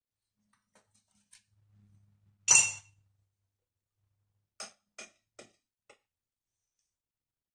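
A sharp, ringing clink about two and a half seconds in, then four lighter clicks about half a second apart near the end: a wax warmer pot and its lid being handled on a salon trolley.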